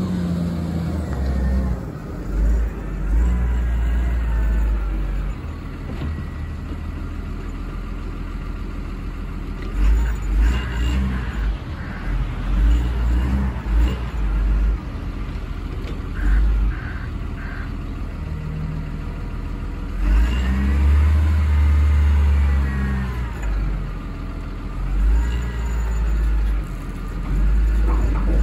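Diesel engine of a Cat 938G II wheel loader running and revving up and down several times as the machine drives and raises and curls its bucket.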